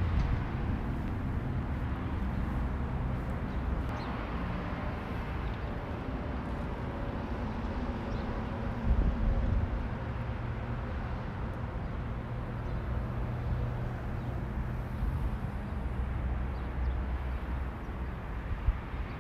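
Outdoor ambience: a steady low rumble with a faint hum, with a brief louder bump about nine seconds in.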